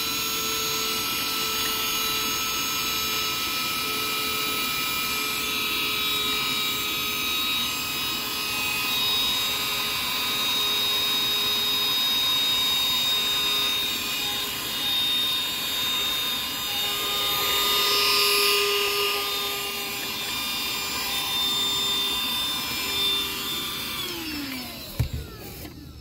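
A eufy HomeVac H11 cordless handheld vacuum running with a steady high motor whine, its level swelling a little as it works. Near the end it is switched off and the whine falls in pitch as the motor winds down.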